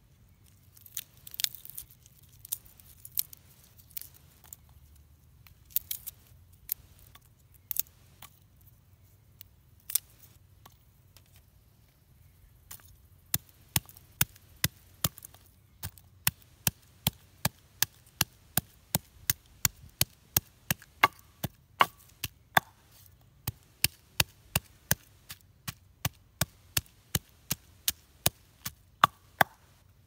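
Wooden pestle pounding garlic cloves in a wooden mortar. A few scattered knocks come first, then from about halfway through a steady run of strikes, roughly one and a half a second.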